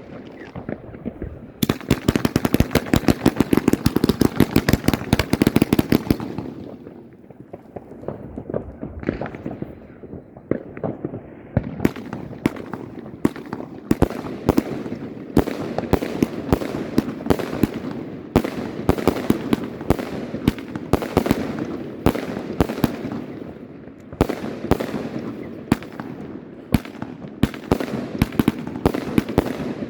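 Riakeo Exodus firework battery firing: a dense run of rapid sharp reports begins about two seconds in. After a lull of a few seconds, sharp bangs and crackles start again and keep going to the end.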